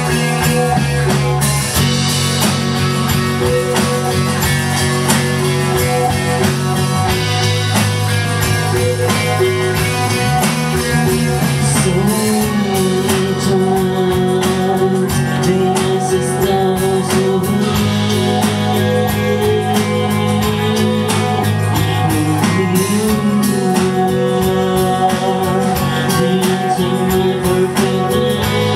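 Live band playing a downtempo chill-out song: electric guitar, bass guitar and drum kit, with a woman singing.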